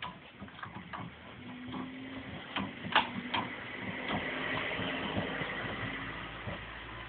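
Metal clinks and knocks as a ball joint press's C-frame, adapter cups and threaded screw are fitted around the rubber bush in a wishbone eye, with the loudest clank about three seconds in. From about four seconds in, a steadier scraping sound runs for a couple of seconds.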